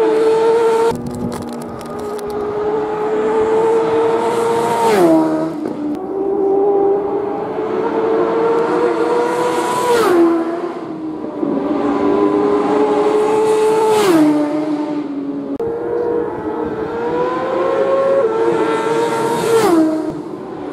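Racing motorcycles passing at full speed one after another, about four in turn. Each engine note climbs slowly as the bike comes on, then drops sharply in pitch as it goes by.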